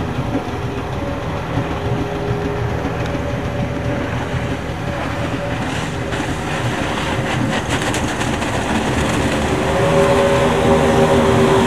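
Outboard motors running at speed with the rush of water beneath them, a steady hum under a noisy wash, with a few sharp spattering ticks midway. The engine hum grows louder about ten seconds in.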